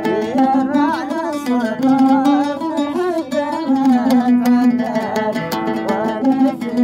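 Arabic song music led by an oud plucked in quick, repeated strokes over a steady low note. A wavering, bending melody line sits on top in the first half.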